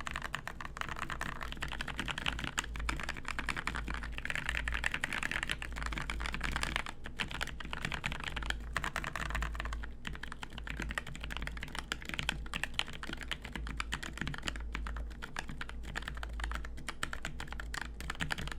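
Fast continuous typing on a Think6.5 mechanical keyboard with a polycarbonate case, lubed T1 tactile switches with Cherry top housings and GMK doubleshot ABS keycaps, with brief pauses about seven and ten seconds in. A steady low hum sits underneath.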